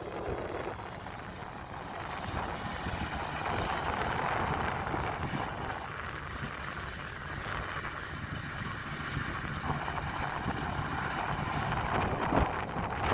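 Kubota DC-93 combine harvester running steadily in the field, a continuous engine and threshing drone.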